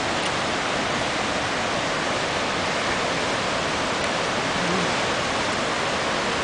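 Steady rush of whitewater cascading down a rocky mountain stream.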